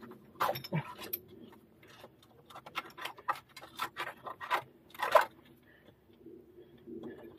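Irregular clicks and scrapes of hands rummaging among stones in a rock crevice, loudest about half a second in and again near five seconds in.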